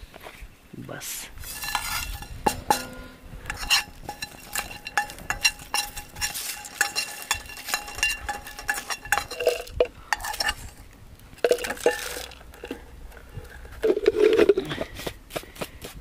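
Whole spices being dry-roasted in a metal pan and stirred: the spoon knocks, scrapes and clinks against the pan in quick, uneven strokes, the pan ringing briefly after each knock.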